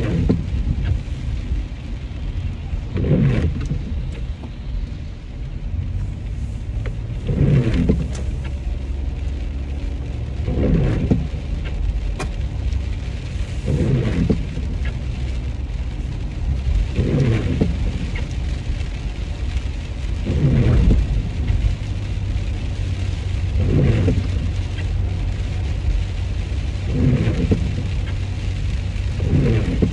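Inside a moving car in the rain: steady low road rumble and rain on the glass, with the windshield wipers sweeping once about every three seconds.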